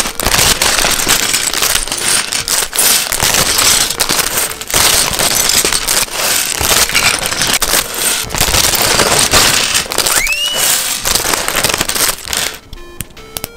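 Plastic bags of LEGO pieces crinkling and crackling as they are handled and opened. The crinkling stops about a second before the end and light music comes in.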